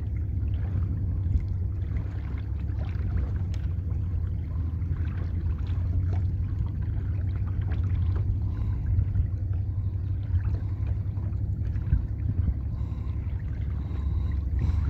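Wind rumbling steadily on the microphone of a small boat on open lake water, with a faint steady hum underneath.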